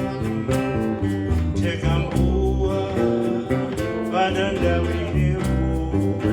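Live band music: plucked guitar and bass over a steady drum beat, with a gliding melodic lead line on top.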